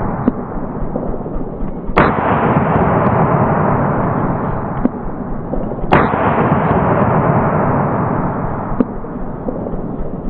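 Two loud gunshots about four seconds apart, aimed at old hard drives, with a few fainter cracks between them over a steady hiss.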